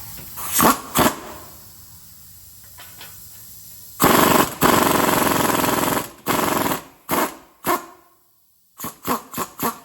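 Impact wrench hammering on a nut that drives a bolt against a stuck hub bearing assembly to press it off: two short bursts, then a longer run of about two seconds, then several short bursts near the end. The effort fails: the nut's threads strip out.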